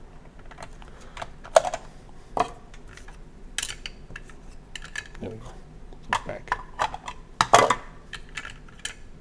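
Irregular clicking and clattering of hard plastic as the Zingo game's plastic tile dispenser and its picture tiles are handled. Two louder knocks come about one and a half seconds in and near the end.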